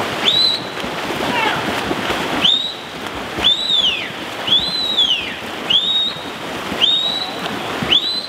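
Splashing and churning water from several swimmers doing front crawl in a pool. A high whistle-like tone swoops up and back down about once a second over the splashing.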